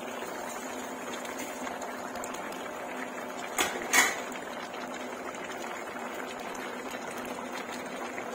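Chop suey with shrimp bubbling in its sauce in a pan, a steady simmering hiss. Two sharp clicks come about half a second apart a little past the middle.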